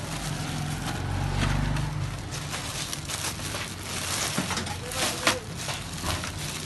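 Clear plastic wrap crinkling and rustling as hands handle plastic-wrapped car alloy wheels in a cardboard box. A low rumble runs under it for about the first two seconds.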